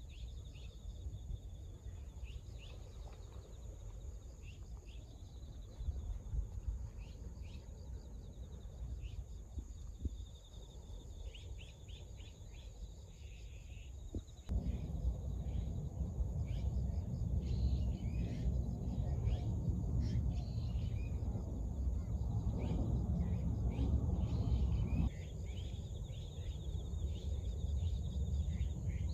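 Outdoor ambience of birds chirping in many short calls over a steady high trill of insects. A low rumbling noise comes in suddenly about halfway through and cuts off again about ten seconds later.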